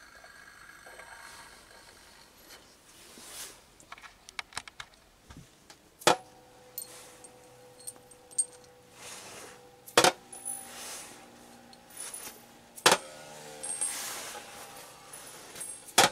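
Brass spinning tops launched one after another onto a plastic box lid. Each lands with a sharp metallic clack, four in all about three to four seconds apart. Each clack is followed by a steady hum that carries on while the top spins, and the hums build up as more tops join, with lighter clicks and brushing sounds in between.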